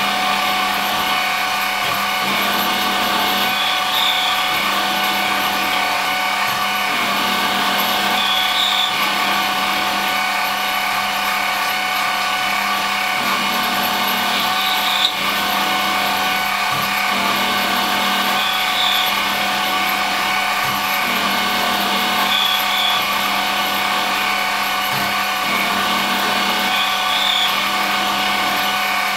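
Home-made CNC lathe set-up on an X3 milling machine running, its motor giving a steady whine over a rough cutting and rubbing noise that shifts every few seconds. A single sharp click about halfway through.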